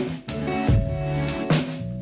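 Background music with a steady drum beat and sustained instrumental notes.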